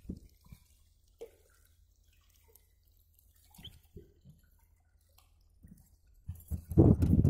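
Faint small splashes and drips of water from a hooked peacock bass thrashing at the surface. About six and a half seconds in, a loud, low, knocking rumble starts and becomes the loudest sound.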